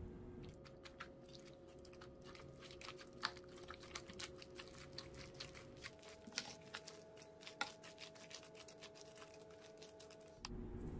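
Wooden spoon stirring a wet mixture of chopped shrimp, crab sticks, chives and raw egg in a ceramic bowl: faint, irregular squelches and clicks.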